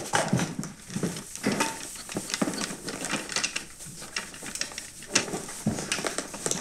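Whiteboard being scrubbed clean with a hand-held eraser: fast, irregular back-and-forth rubbing strokes.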